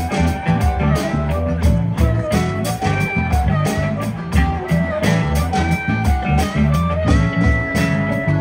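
Live rock band playing an instrumental passage: electric guitars, bass and drums keep a steady beat while a lead line of held, bending notes plays over it.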